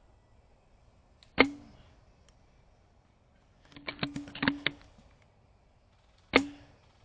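Silverback TAC41 spring bolt-action airsoft sniper rifle fired twice, each shot a sharp crack with a brief spring ring. Between the shots comes a quick run of clicks and clacks as the bolt is worked to cock it.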